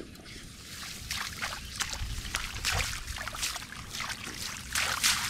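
Shallow rice-field water splashing and sloshing in a run of irregular splashes, the biggest near the end.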